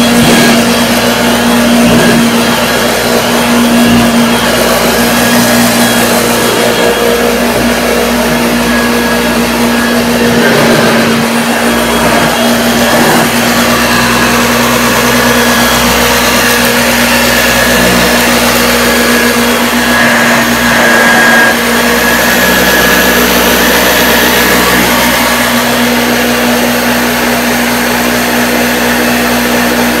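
A restored 1976 Hoover Junior upright vacuum cleaner running with a steady hum as it is pushed over a carpet. It is running as it should be.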